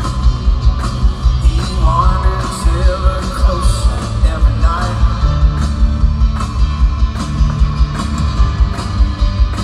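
Live rock band performance: a male lead vocalist sings over electric guitar and a fast, steady drum beat.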